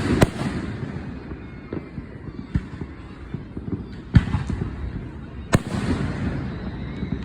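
Fireworks going off: sharp bangs just after the start, about four seconds in and about five and a half seconds in, over steady crackling and popping.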